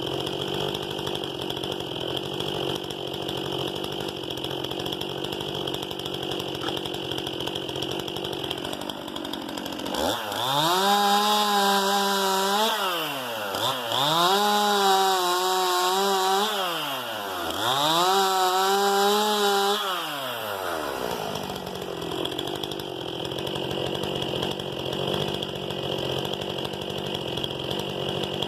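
STIHL MS 261 C-M two-stroke chainsaw idling, then throttled up to high revs three times about ten seconds in, each held for two or three seconds before dropping back. It then settles to idle again.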